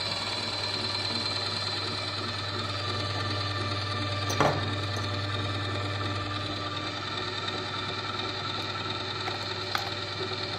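Electric grinder motor running with a steady hum. There is a sharp knock about four and a half seconds in and a smaller click near the end.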